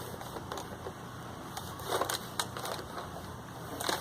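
Plastic clicks and rattles from a Nerf Stampede blaster being handled, the loudest cluster about two seconds in and another near the end.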